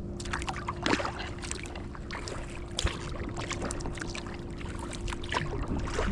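Kayak paddle strokes on calm water: irregular small splashes and drips from the blades, with a steady low hum underneath.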